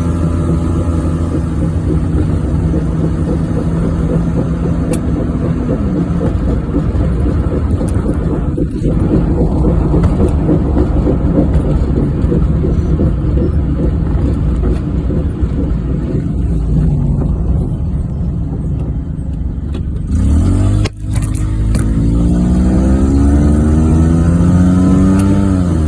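1994 Geo Metro driving, heard from inside the car: steady engine and road drone from a car with a bad wheel bearing. About 21 seconds in the sound dips briefly at a gear change. The engine pitch then rises as the car accelerates and drops again at the next shift near the end.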